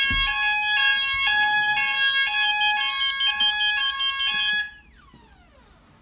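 Apollo AlarmSense fire alarm sounding during a smoke detector test: a loud electronic alarm with two tones alternating about every half second over a steady higher tone. Near the end it cuts off, and the pitch glides down as it winds away.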